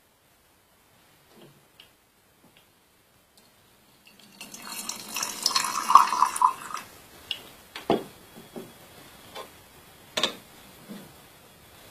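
Water poured into tea vessels for about two seconds, followed by a series of separate light knocks and clinks of teaware being set down and handled.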